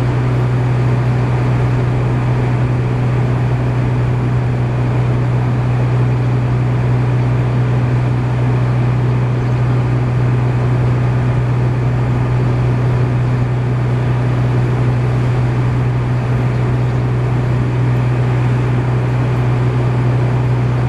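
Steady low drone of an engine or motor running at constant speed, unchanging throughout.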